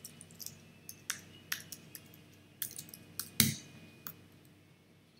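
Irregular clicks and taps of a computer keyboard and mouse, about ten in all, with one louder knock about three and a half seconds in.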